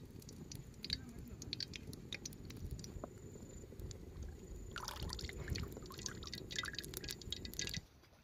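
Wet squelching and clicking as sesame oil is added to the food and worked in, over a low steady rumble; it cuts off sharply near the end.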